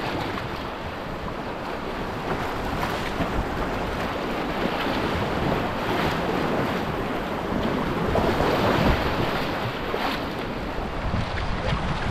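River rapids rushing around a canoe running whitewater, with wind buffeting the microphone. The rush swells a little about two-thirds of the way through.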